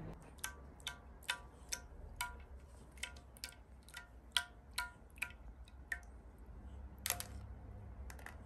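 Sparse music of short plucked or tapped notes, about two a second at uneven spacing.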